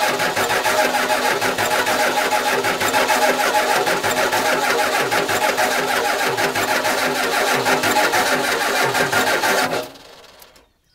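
1992 Ford F-350's starter cranking the engine steadily for about ten seconds without it catching, then cutting off, with the battery cables running hot under the load.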